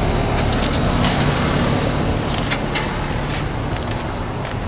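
Several outdoor heat pump units running together: a steady fan and compressor noise with a low hum underneath. A few short sharp clicks stand out over it.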